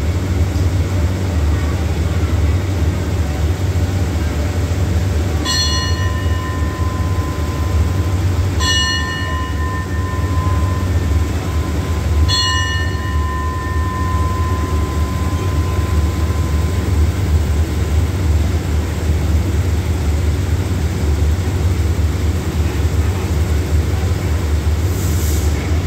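Steady low rumble of a stationary diesel train idling, with a bell struck three times a few seconds apart, each strike ringing on for a couple of seconds. A short hiss near the end.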